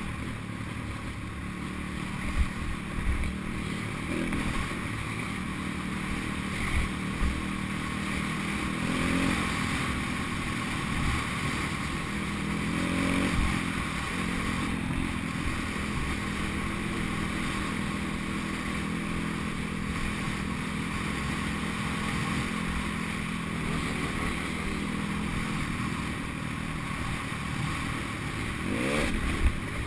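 Pit bike engine running steadily as the bike rides along a dirt track, its pitch rising a few times as the throttle opens, once near the end. Occasional low thumps from the bike bouncing over the rough track.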